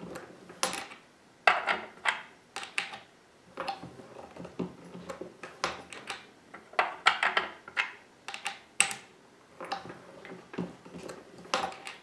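Repeated metallic clicks and clinks of brass .223 cartridges being set into and pulled from a single-stage reloading press's shell holder, with the press ram and lever clunking as each round is run up into a Lee Factory Crimp Die to take a light taper crimp.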